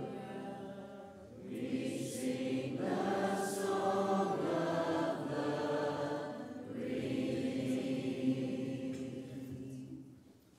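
Congregation singing a hymn together without instruments, in long held phrases with short breaths between them. The last phrase fades out near the end.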